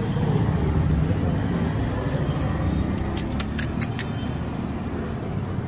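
Steady roadside traffic rumble, with a brief run of sharp, crisp clicks about three seconds in.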